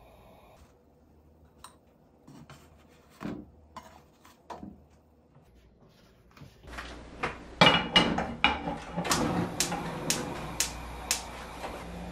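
Kitchen clatter while cooking at the hob. There are a few light taps of utensils on a pan and cutting board, then, from about halfway, a run of sharp clinks and knocks of pans and utensils, about two a second. A steady low hum comes in near the end.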